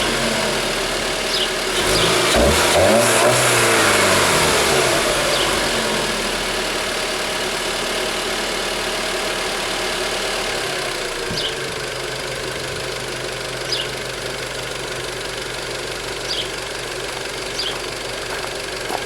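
SEAT Leon Cupra 290's 2.0-litre turbocharged inline-four, on its stock exhaust, blipped up and down a couple of times about two to four seconds in. The revs then sink slowly back over several seconds and the engine settles into a steady idle.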